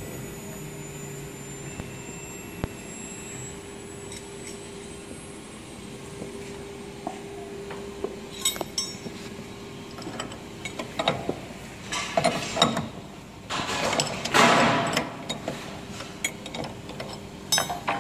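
Steel open-end wrenches clinking against a CNC router spindle's collet nut during a bit change, scattered clinks through the second half with a louder scraping stretch near the end. A steady machine hum continues underneath.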